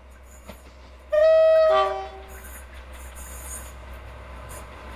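Two-tone horn of a Class 57/3 diesel locomotive sounding once about a second in, a high note dropping to a lower one. The approaching train's engine and wheel noise then run on steadily.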